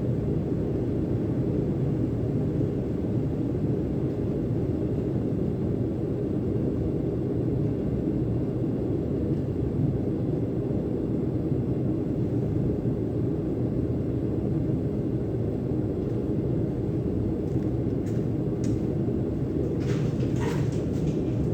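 Steady low rushing noise of a gas burner flame heating a steel axe head for heat treating, with a few faint clicks near the end.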